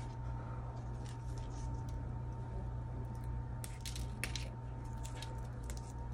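Hands handling an African violet and its clump of peat-based potting soil: a few soft clicks and crackles, most of them about four seconds in, over a steady low hum.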